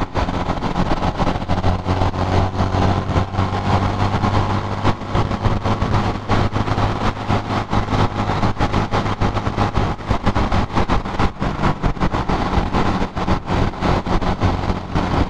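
Honda motorcycle engine running at a steady cruise, with wind buffeting the microphone throughout.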